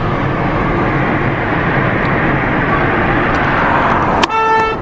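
Steady road and traffic noise from a moving car. Near the end a car horn sounds once, briefly, for about half a second.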